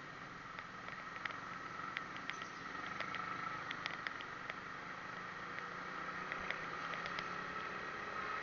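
Steady, muffled driving noise of a vehicle moving through city traffic, with many small scattered clicks and rattles.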